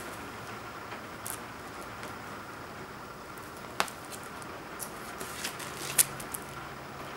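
Plastic wrapping and a record's plastic inner sleeve being handled: faint rustling and crinkling, with a sharp crackle about four seconds in and the loudest snap about six seconds in.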